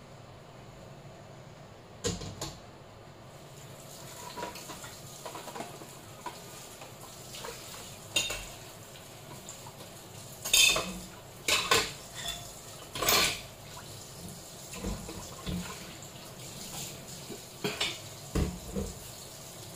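Mussels cooking in a frying pan on a gas stove, with a steady low hiss. Over it come scattered sharp clinks and clatters, the loudest a quick run of them about halfway through.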